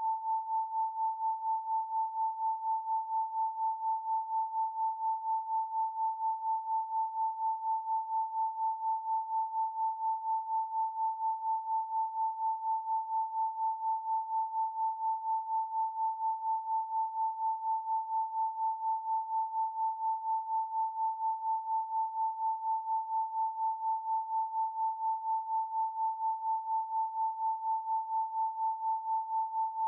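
Pure 888 Hz sine tone, held steady at one pitch, its loudness pulsing evenly several times a second.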